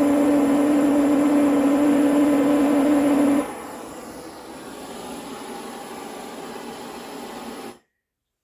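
Electric workshop power tool running with a loud steady hum that stops abruptly a little over three seconds in, leaving a quieter steady whir that cuts off suddenly near the end.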